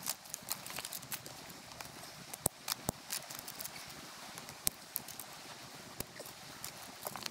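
Dry pine branches snapping and clattering as they are broken and stacked for a campfire: an irregular run of sharp cracks and knocks, a few of them loud.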